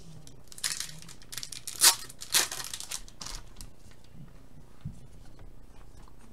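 Trading cards being handled on a table: a few short rustling and crinkling noises in the first three seconds, the loudest just before two seconds in, then only a couple of faint knocks.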